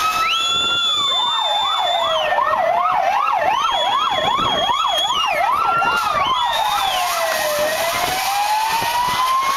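Several police van sirens sounding at once. A slow wail rises and falls over several seconds, a fast yelp of about three sweeps a second joins it for a few seconds in the first half, and a higher tone steps up and down above them.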